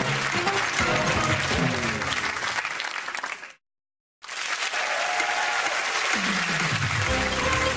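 Studio audience applauding over music. It fades out to a moment of silence at the break about three and a half seconds in, then the applause and music come back.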